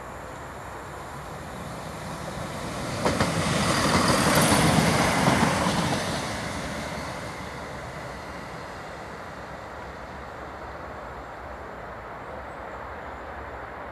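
A London Midland passenger multiple-unit train passing close by: its rumble builds over a couple of seconds, is loudest around four to five seconds in with a few sharp wheel clacks, and fades away over the next few seconds to a steady background hum.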